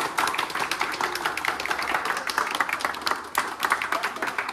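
A small group of people clapping and applauding without a break, many quick claps overlapping, with faint voices underneath.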